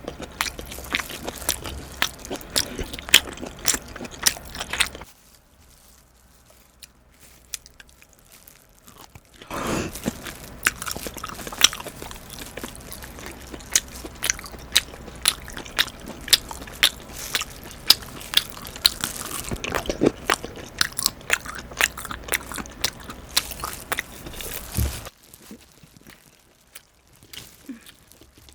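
Close-miked chewing and biting of steamed abalone: dense wet, crunchy, chewy mouth sounds. The chewing stops about five seconds in, starts again about four seconds later, and stops again a few seconds before the end.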